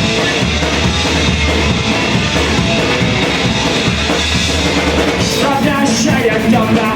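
Live punk rock band playing an instrumental stretch with drum kit and guitar; the singer comes back in near the end with the chorus.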